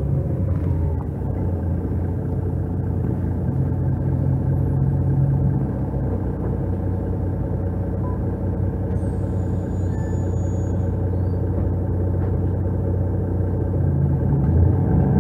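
Euro 3 Mercedes-Benz O530 Citaro city bus with a Voith gearbox, its diesel engine running with a steady low drone, heard from inside the passenger cabin. The drone picks up slightly near the end.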